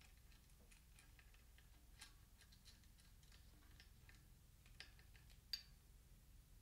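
Faint, scattered small clicks of a hex key and brake-pad mounting hardware being loosened on a Shimano BR-R451 rim-brake caliper, the sharpest click about five and a half seconds in.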